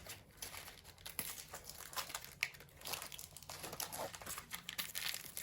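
Packaging crinkling and rustling in irregular small crackles as a radio's AC adapter is worked free of it by hand.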